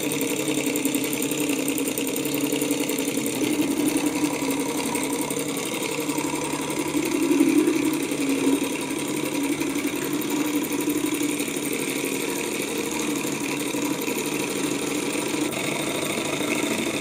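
Small alcohol-fired twin-piston Stirling engine running with a propeller spinning on its shaft. It makes a fast, steady mechanical clatter that swells briefly about seven to eight seconds in, and its running is a little erratic.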